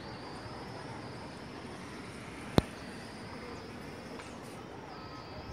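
Outdoor ambience with a steady high-pitched insect drone. A single sharp click sounds about two and a half seconds in.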